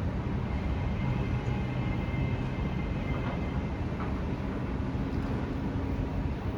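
SMRT C151 metro train pulling out of a station: steady rumble of wheels and running gear with faint whining tones from the traction equipment.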